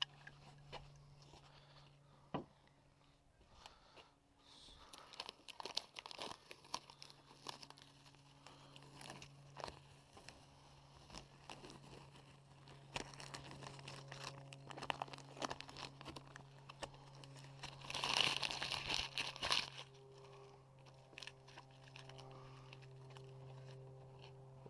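Hands handling small Dzus clip hardware (springs and washers) and its packaging: crinkling and rustling with many light clicks, loudest for a moment about eighteen seconds in, over a steady low hum.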